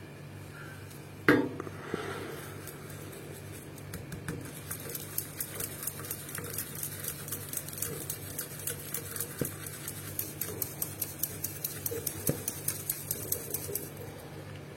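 A single sharp knock with a brief ring, then a long run of light, quick clicks or taps, about four or five a second, that stops shortly before the end.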